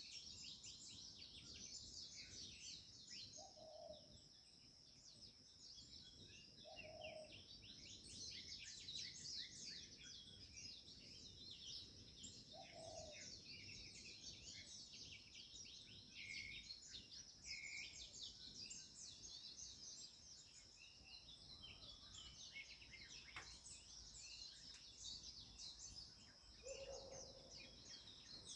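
Faint morning chorus of many small birds chirping and singing densely and without pause, over a steady high-pitched tone. A few short lower calls come about four times, the last near the end.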